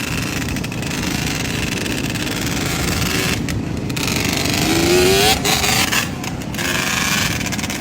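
Yamaha Banshee's two-stroke twin engine running under a steady rushing noise, its revs rising briefly about five seconds in.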